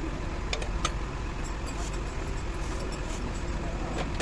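Steady low rumble of motor-vehicle noise, with a few short sharp clicks: one about half a second in, one near the first second, and one near the end.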